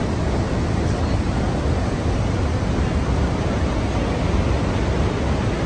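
Steady rush of falling water from Niagara's Horseshoe Falls: an even, unbroken noise, heaviest in the low end.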